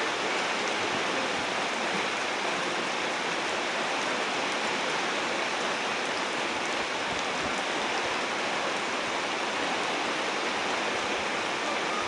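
Heavy rain pouring steadily: an even, unbroken hiss.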